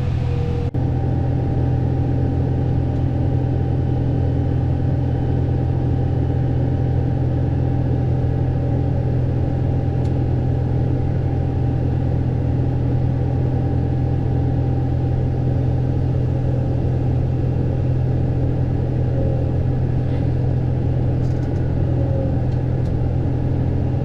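Tractor engine running steadily at about 1700 rpm with the power takeoff driving a grain cart's unloading auger: a loud, even low drone.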